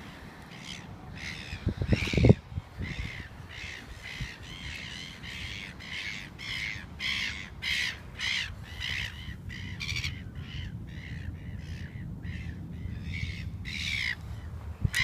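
Birds calling over and over, a run of short calls about two a second, with a low thump about two seconds in.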